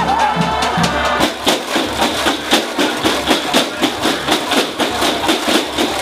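Drumline percussion playing a fast, steady beat.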